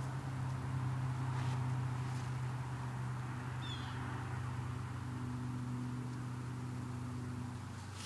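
Many wasps buzzing at close range: a steady low hum of wings, with a short high chirp about halfway through.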